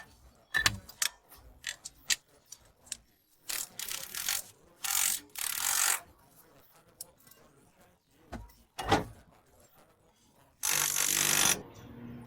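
Workshop hand-tool work on an e-rickshaw wheel's brake parts: scattered clicks and knocks of metal parts and tools. There are three short hissing bursts, the loudest near the end.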